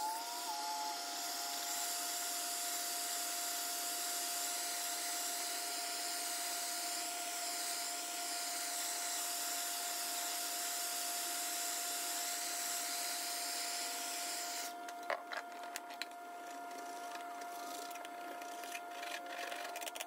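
Electric heat gun blowing hot air onto old metal door hinges, a steady hiss with a constant whine that shuts off about 15 seconds in. After it stops come a few light clicks and scrapes of metal on metal.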